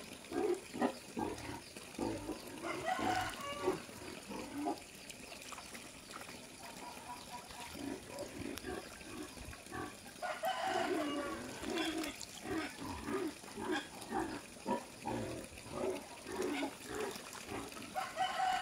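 Farm animals calling: runs of short, repeated calls in two spells, with a lull of a few seconds in between, over light splashing of pond water.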